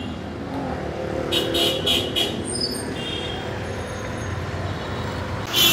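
Street traffic: motor vehicles running and passing, with a few short high rattles about one and a half to two seconds in and a louder sudden sound near the end.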